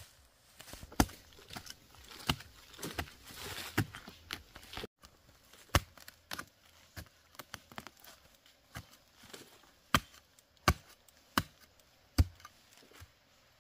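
Blade chopping: a series of sharp strokes, uneven at first, then settling into about three strokes every two seconds near the end. A short rustling hiss comes between strokes a few seconds in.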